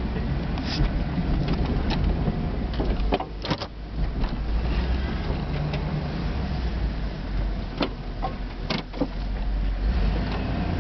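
1999 3/4-ton Suburban running under load while plowing snow, heard from inside the cab as a steady low rumble. A few sharp knocks cut through it, the clearest about three and a half seconds in and again near nine seconds.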